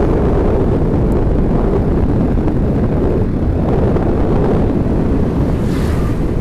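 Steady rumble of a vehicle on the move, with road and wind noise.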